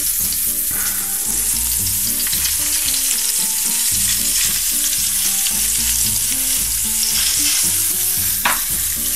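Pieces of crucian carp frying in hot oil in a frying pan: a steady sizzle. A single light tap sounds near the end.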